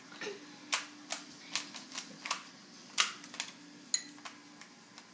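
Plastic Rubik's Cube layers being turned by hand, clicking and snapping in a quick irregular run of about a dozen clicks, the loudest about three seconds in.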